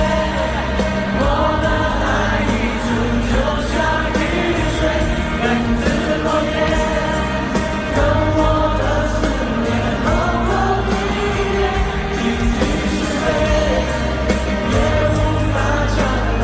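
Live pop concert music: a band playing a song with singing, in which many voices sing together as a stadium audience sings along.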